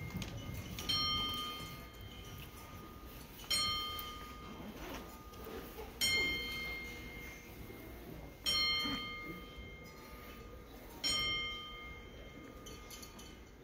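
Wrestling ring bell struck slowly, five strikes about two and a half seconds apart, each ringing out and fading before the next: part of a ten-bell salute, the traditional wrestling tribute to someone who has died.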